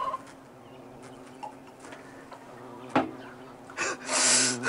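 A man downs a shot of vodka: a single sharp knock about three seconds in, then a loud, harsh exhale near the end, over a faint low hum.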